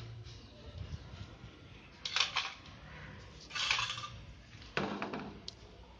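Usha sewing machine head being handled and set into its wooden table stand: three short metallic clanks and knocks about a second apart, the last one heavier.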